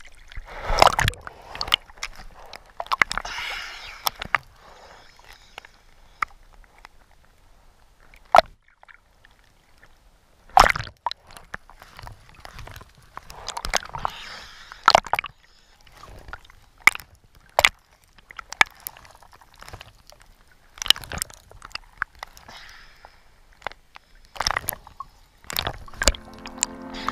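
Water sloshing and gurgling heard through an underwater camera, with short washes of hiss and scattered sharp clicks and pops.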